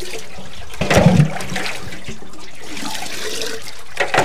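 Water running steadily in a continuous rush, with a brief louder bump about a second in.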